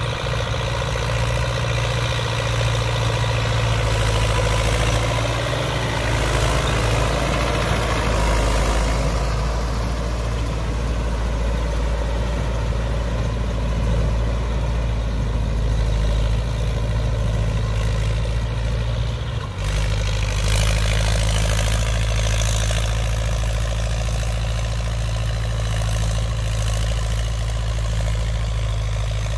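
Old Belarus MTZ tractor's diesel engine running steadily under load while pulling a rotary tiller through the soil, with a brief break about two-thirds of the way through.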